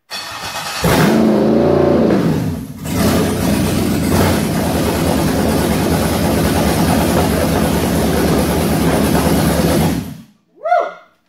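Freshly rebuilt LQ9 6.0-litre V8 on an engine stand, turned over briefly by the starter and catching about a second in, revving up and back down, dipping for a moment, then running steadily for about seven seconds before it is shut off. A man's short shout follows the shutdown.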